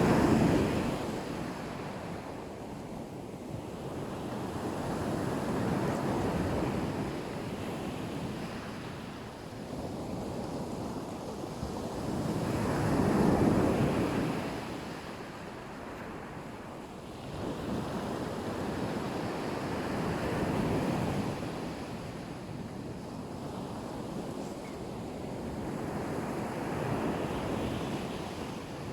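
Black Sea surf: waves breaking and washing on the shore, swelling and ebbing about every six or seven seconds, the loudest wave about halfway through.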